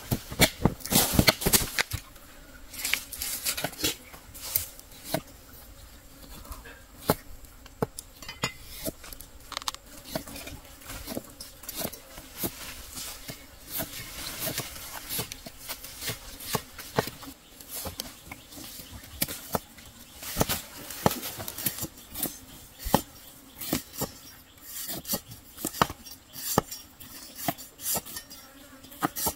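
Irregular clicks, knocks and clatters, like utensils and objects being handled, with louder clusters in the first couple of seconds and again about two-thirds through.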